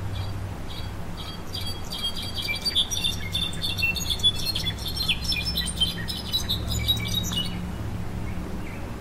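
A jilguero songbird singing a long jumbled song of rapid, high, chime-like notes. It begins with a few scattered chirps, thickens into a dense run, and stops abruptly a second or so before the end.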